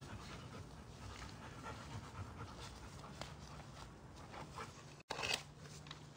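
A Rottweiler panting, with a brief louder noise about five seconds in.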